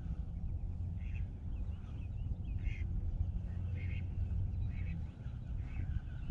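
Birds giving short calls about once a second, over a steady low rumble.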